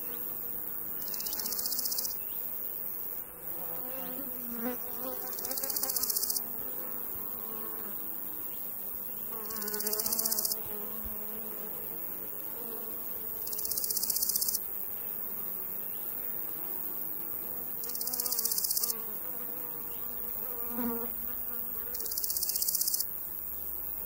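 Summer-meadow insects: a cricket chirring in high-pitched bursts about a second long, roughly every four seconds, each swelling and then cutting off sharply. Under it run a steady high insect hiss and the buzz of flying insects.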